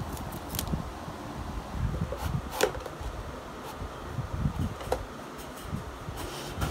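Wooden craft sticks clicking and tapping as they are handled and pushed into slits in a box, a few separate sharp clicks over soft, uneven low thumps.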